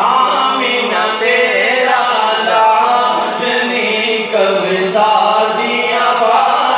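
A man singing a naat, an Urdu devotional poem in praise of the Prophet, unaccompanied, in a gliding, ornamented melody.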